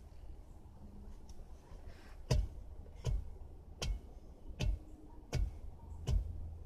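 Steady dull thuds of a long-handled bar striking the ground at the foot of a wooden post, about one stroke every three-quarters of a second, starting about two seconds in.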